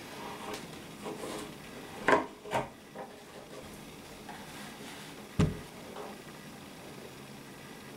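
Hands strapping a plastic cyclone separator down onto a plywood box with a bungee cord: the cord rubs and a few knocks sound on the wood, two close together about two seconds in and one heavier thump about five and a half seconds in.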